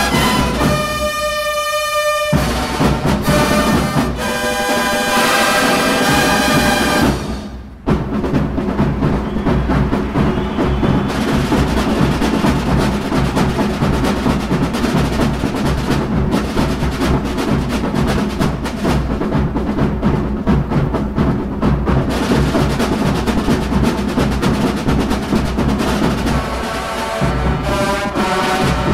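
Drum and bugle corps recording. The bugle line plays held chords, then after a brief drop about seven seconds in the drum line plays a long percussion passage, and the bugles come back in near the end.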